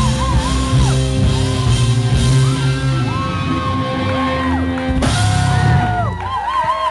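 Live rock band playing: distorted electric guitars, drums and cymbals, with vocals. Near the end the drums and cymbals drop away, leaving held guitar notes as the song winds down.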